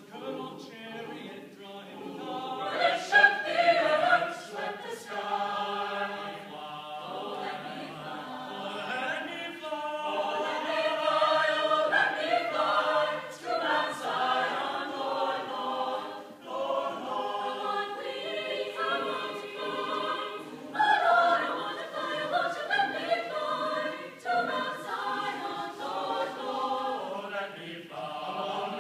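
Chamber choir singing in parts, in phrases with short breaks between them.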